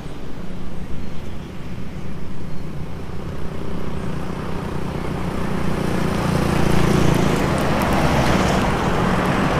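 Heavy dump truck driving past on the highway, its engine drone and tyre noise growing louder toward a peak near the end.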